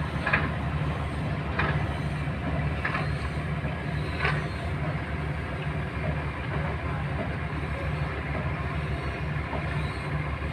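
Boat engine chugging steadily in a low, rapid rhythm. A few brief sharp sounds come over it in the first half.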